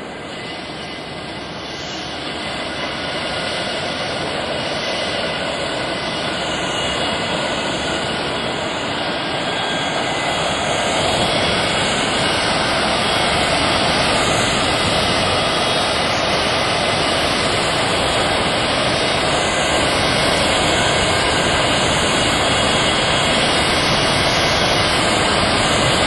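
Jet aircraft engine noise: a dense, steady rush with a faint high whine, growing louder over the first ten seconds or so and then holding steady.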